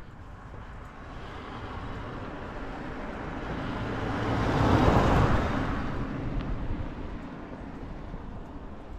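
A car passing by on the asphalt road: its tyre and engine noise swells, peaks about halfway through, then fades as it drives away.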